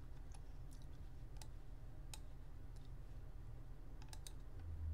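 Faint, sparse clicks of a computer mouse, about ten spread over a few seconds, over a low steady hum.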